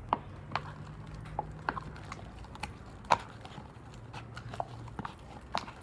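Thick, sticky fluffy slime (glue, shaving cream and contact lens activator) being mixed in a cup, giving irregular wet clicks and squelches about once or twice a second. The slime is still sticky and clinging to the container.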